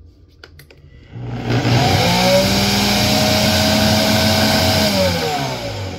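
Motor of a nutribullet Full Size Blender Combo 1200W running with an empty jar on its low setting. After a click, it spins up about a second in, runs at a steady high whine, then winds down near the end.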